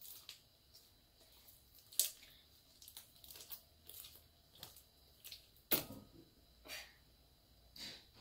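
Sticky, partly unactivated clear-glue slime being kneaded and pulled apart by hand, giving faint, irregular wet clicks and pops, the sharpest about two seconds in and again near six seconds.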